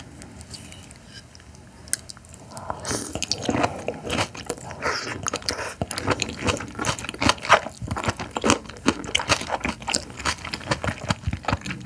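A raw oyster eaten off its half shell, slurped and chewed with wet smacks and clicks that start about two and a half seconds in.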